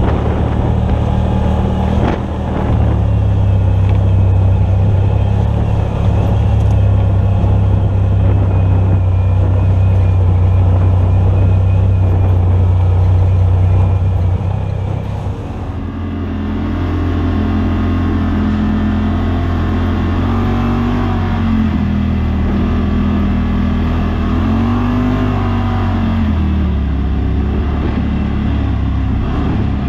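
Side-by-side UTV engine running under way on a dirt trail, a steady drone for the first half. About halfway through this changes to an engine whose pitch rises and falls with the throttle.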